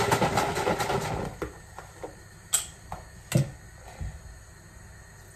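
A container of oat barista milk shaken for about a second, the liquid sloshing inside. Then come a few separate light clicks and knocks as the container is handled.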